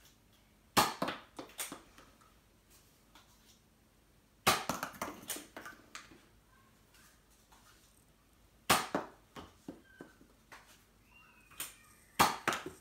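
Nerf blaster fired four times, about four seconds apart: each shot a sharp pop followed by a short run of clicks and clatter.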